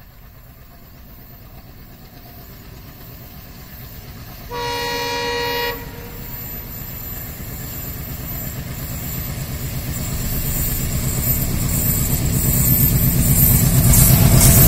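Twin WDM-3D diesel locomotives hauling a passenger train approach, their engine rumble growing steadily louder. About four and a half seconds in, the leading locomotive sounds one horn blast of just over a second.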